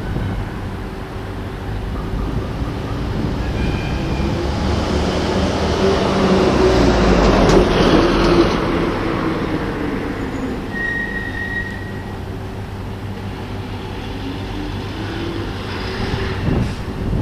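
Heavy vehicle running nearby, its rumble swelling to a peak about eight seconds in and then easing off, with a short high squeal a few seconds later.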